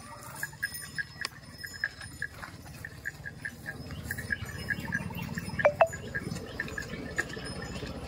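A herd of zebu cattle walking along a dirt road, with a steady run of small, high clinks, several a second. About six seconds in there is a louder, sharp double sound.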